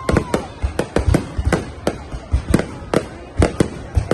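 Fireworks display: a rapid, irregular barrage of sharp bangs from aerial shells bursting, several a second, with a short falling whistle near the start.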